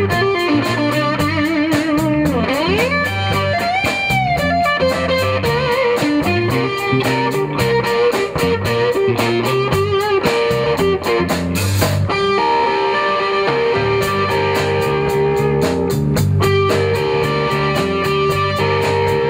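Live blues band playing an instrumental break: electric guitar lead with bent notes over a steady drum beat.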